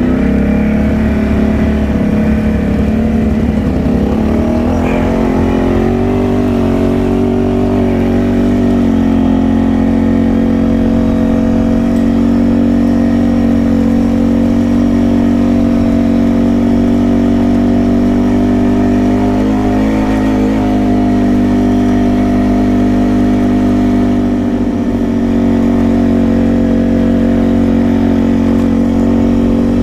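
Can-Am Outlander ATV's V-twin engine, fitted with an aftermarket exhaust pipe, pulling away and rising in pitch over the first few seconds, then running steadily at trail-riding speed.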